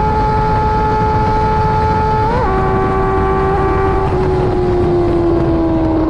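Honda CBR650R inline-four engine through a KO Lightning aftermarket exhaust, running at steady high revs on the move with heavy wind rush. About two and a half seconds in, the note flicks up and then drops in a gear change, and the revs then sag slowly.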